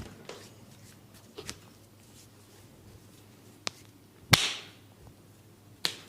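Sharp smacks of a masseur's hands on the head and neck during a head massage: four crisp slaps a second or two apart, the loudest about four seconds in.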